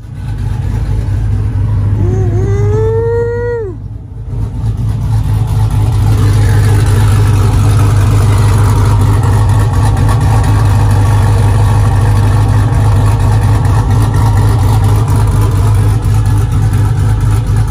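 Dodge Ram 1500's Hemi V8, fitted with an aftermarket HPT camshaft, running at a loping idle, heard close to the exhaust tip. A brief whine rises and then drops off about two to four seconds in.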